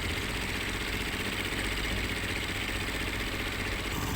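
A motor engine running steadily with an even, fast low pulse.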